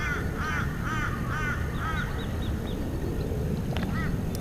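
Birds calling: a quick run of repeated calls, about four a second, for the first two seconds, then fainter, higher calls and a few more near the end.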